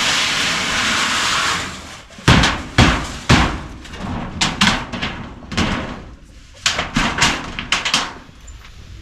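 A steady hiss, then from about two seconds in an irregular run of sharp knocks and bangs, a dozen or so, the first few the loudest.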